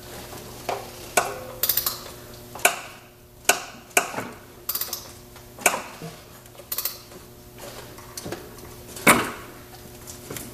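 Hand tools clicking and clinking against metal as a Jaguar AJ126 supercharged V6 is turned over by hand: irregular sharp strokes, some in quick clicking runs, about one or two a second. The engine is suspected of a spun bearing and only turns so far before stopping.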